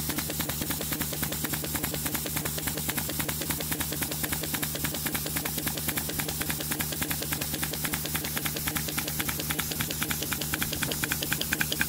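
Pneumatic soil-piercing mole hammering its way into the earth: a fast, even run of blows, many a second, over a steady hum, a little louder near the end.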